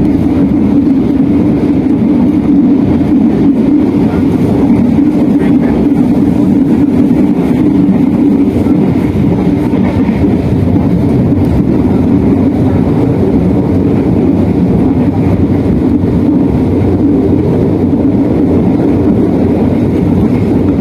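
Train running at steady speed, heard from inside the carriage: a loud, constant rumble.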